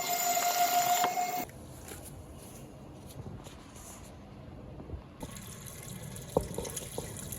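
Small portable washing machine's motor running with a steady whine that cuts off about a second and a half in. Water then runs and splashes in its tub, with a few light clicks near the end.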